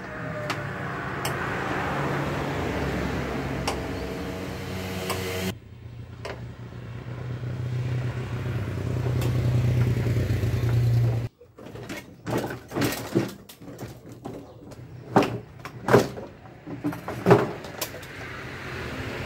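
A steady engine drone that grows louder and then cuts off abruptly, followed by a run of sharp knocks and clicks, a few of them loud, from the Suzuki Carry van's front door being worked.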